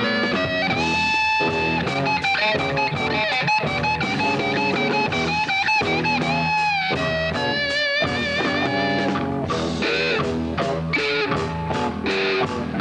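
Lead guitar solo over a full band backing, with long held notes that bend and waver in pitch.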